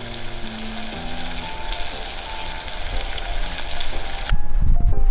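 Salmon pieces sizzling in a hot cast-iron skillet, a steady frying hiss with soft background music under it. The sizzle cuts off suddenly a little over four seconds in, and louder music with a heavy low end takes over.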